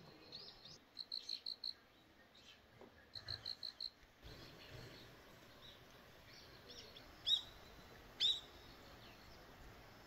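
Small birds calling: two quick runs of about five high chirps in the first few seconds, then two louder downward-sweeping calls about a second apart later on.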